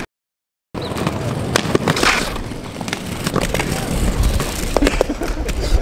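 Aggressive inline skates on concrete: wheels rolling with sharp clacks of frames and landings, and a short scraping grind about two seconds in. The sound cuts out completely for a moment at the start.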